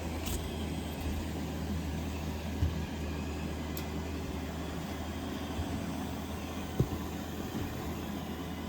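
Roomba robot vacuum cleaning, its motor and brushes giving a steady low hum, with a few light clicks and one sharp knock about seven seconds in.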